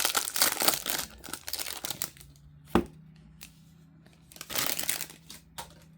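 Plastic wrapper on a pack of baseball trading cards crinkling and tearing as it is opened. The crinkling is dense for the first couple of seconds, there is one sharp snap a little before the middle, and a short rustle follows near the end.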